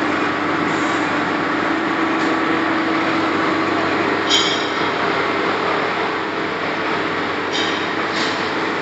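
Metal lathe running with a steady hum and noise, with a brief high metallic squeal about four seconds in and two more near the end.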